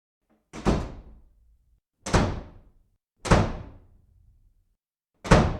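Four heavy thuds, each dying away within about half a second, with dead silence between them.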